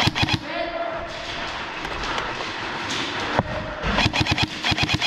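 Airsoft electric guns firing in a large echoing hall: a few quick shots at the start, then a rapid full-auto burst of about ten shots a second near the end.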